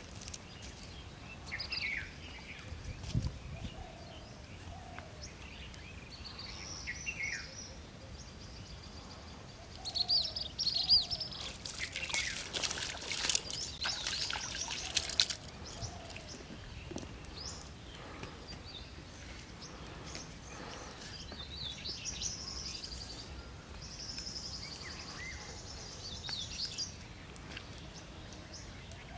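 Several birds calling and chirping around a pond, with a few seconds of water splashing near the middle as hands work at the water's edge.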